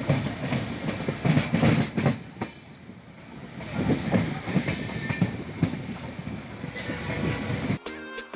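Passenger train running, heard from a coach doorway: a rumble with irregular clattering knocks as the wheels cross rail joints. Music comes in near the end.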